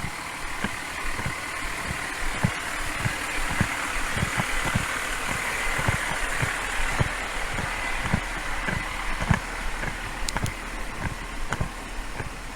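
Footsteps picked up by a body-worn camera as a low, even thump about one and a half times a second, while a vehicle engine idles with a steady hiss and hum.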